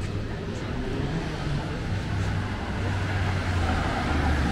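Street traffic: a motor vehicle's engine hum with tyre noise, growing louder as it approaches.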